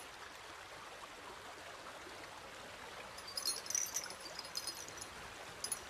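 Faint river water trickling and lapping, steady throughout, with clusters of small crisp ticks from about three and a half to five seconds in and once more near the end.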